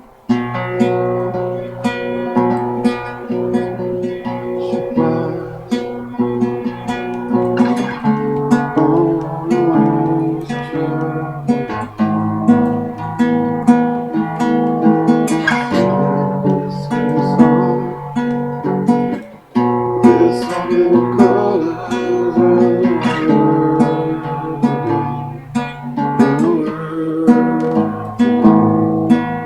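Acoustic guitar strummed and picked in a chord pattern. It comes in sharply at the start and breaks off briefly about two-thirds of the way through.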